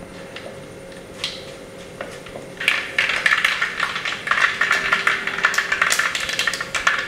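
Mustard seeds popping in hot coconut oil in a clay pot: a few scattered pops at first, then from about two and a half seconds in a dense crackle of pops over sizzling as the tempering seeds burst.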